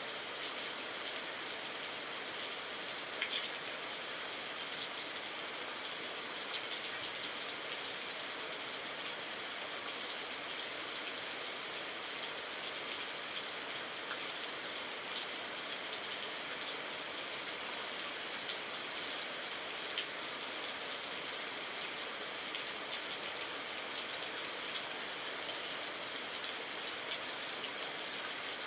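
Steady rain falling: an even hiss with faint, scattered drop taps.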